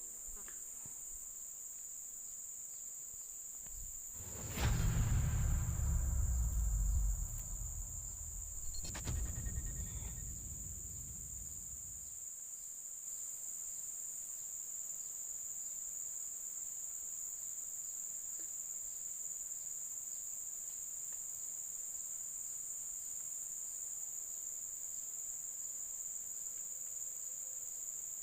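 Steady high-pitched chirring of insects such as crickets. A loud low rumble lasting about two seconds breaks in about four and a half seconds in, and a shorter one follows near nine seconds.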